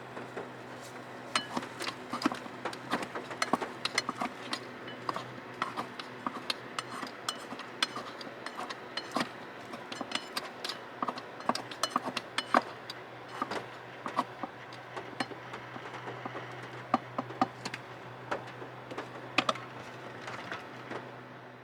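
Many irregular light clicks and taps, several a second, over a steady low hum.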